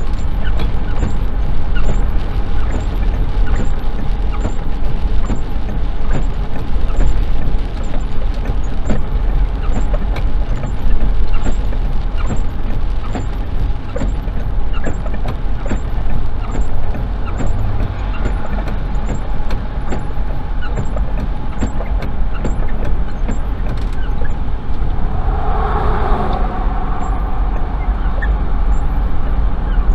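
Steady low road rumble of a car driving on a wet highway, heard from inside the cabin, with rain hitting the windshield as many small crackling ticks. A brief higher-pitched sound rises and fades near the end.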